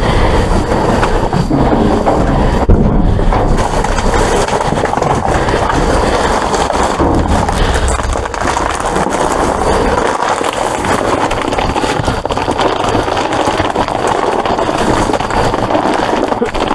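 Plastic bags and dumpster trash rustling and crinkling as they are pushed aside and handled, with many small knocks and crackles.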